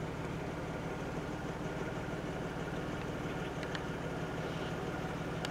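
A vehicle engine idling steadily with an even low rumble, and a couple of faint clicks about three and a half seconds in.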